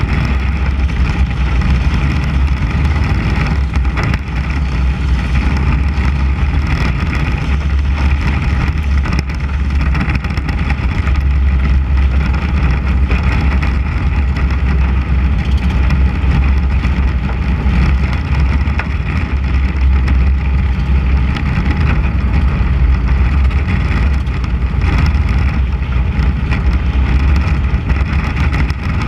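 Mini Cup race car's 600cc engine running hard and steady at racing speed, heard close up from the car's hood, with a heavy deep rumble underneath.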